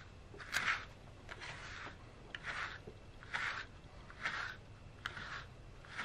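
A brush drawn again and again through a cat's fur: a rhythmic series of short hissing strokes, about one a second.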